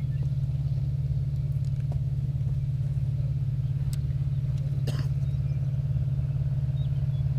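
Steady low hum of an idling engine with a fast, even pulse, and a couple of faint clicks about four and five seconds in.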